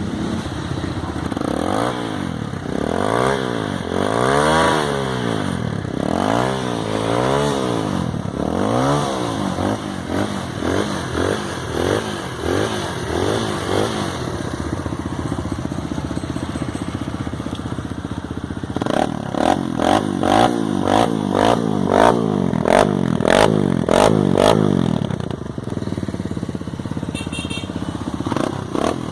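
Kawasaki KLX 150L's single-cylinder four-stroke engine running through an aftermarket Kimoto Superbike full exhaust system. It idles and is revved with slow rises and falls for the first half, then runs at a steady idle. Later it gets a rapid run of about a dozen short, sharp throttle blips, roughly two a second, before settling back to idle.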